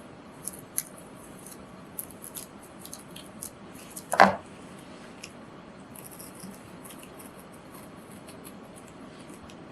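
Scissors cutting through a paper etching print: a run of small, crisp snips and paper rustles, with one louder clack about four seconds in.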